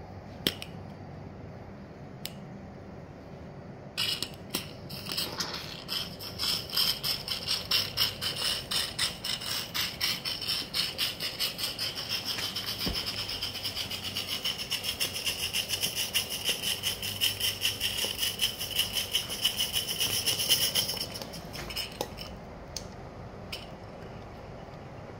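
Accucraft C16 live-steam model locomotive running under steam: a rapid, even beat of exhaust chuffs with hissing steam, starting suddenly about four seconds in and stopping a few seconds before the end.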